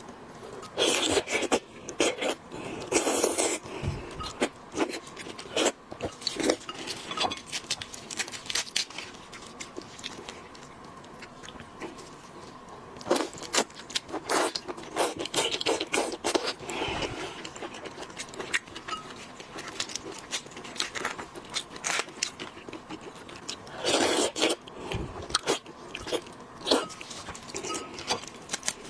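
Close-miked eating of boiled seafood: shells cracking and crunching, scraping and chewing. It comes in several bursts of crisp clicks, with quieter pauses between.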